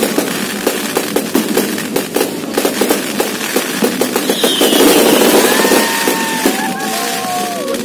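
Aerial fireworks display: a rapid, continuous barrage of bangs and crackles. A falling whistle comes in about four seconds in, and drawn-out whistling tones sound over the last two seconds.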